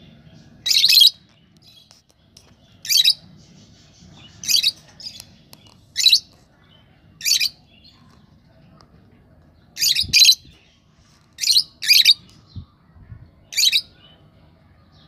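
Fischer's lovebird giving about ten short, shrill calls, spaced a second or two apart, with two quick double calls in the second half.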